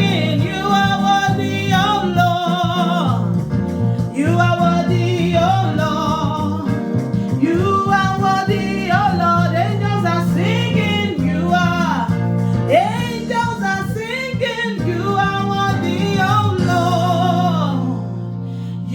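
Gospel worship song: a singer's long, bending, wavering notes over a steady instrumental accompaniment.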